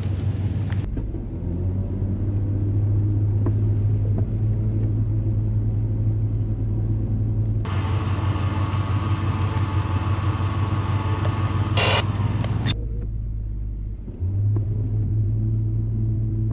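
Off-road truck engine running with a steady low rumble. From about 8 to 13 seconds in, a brighter, hissier layer of noise sits over it, then stops abruptly.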